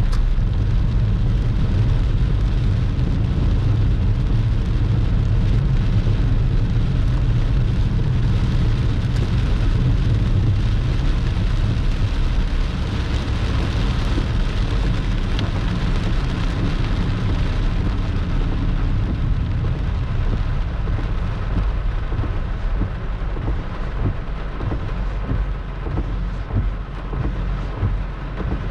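Torrential rain pouring down in a thunderstorm, loud and steady, with a deep low rumble underneath. About halfway through the rumble fades and the downpour becomes a little quieter and more uneven.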